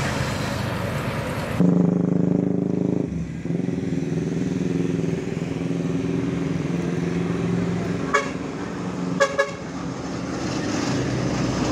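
Intercity coach diesel engines running as a bus drives past and a Murni Jaya coach approaches, with a steady engine drone. Two short horn toots come about eight and nine seconds in.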